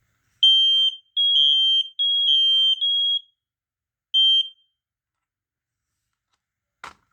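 Smoke alarm horns being tested: about five shrill, single-pitch beeps in the first four and a half seconds, some overlapping at two slightly different pitches, then they stop. A single sharp click near the end.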